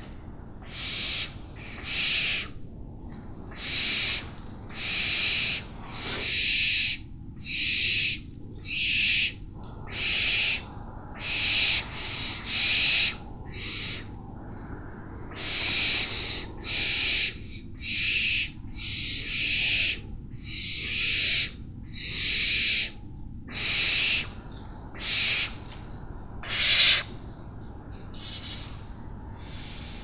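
An owl giving harsh, rasping screeches over and over, each under a second long and without a clear pitch, about one a second, with a short break midway.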